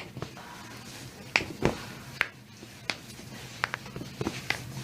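Toe joints cracking under a chiropractor's adjustment: a series of about eight sharp pops at irregular intervals.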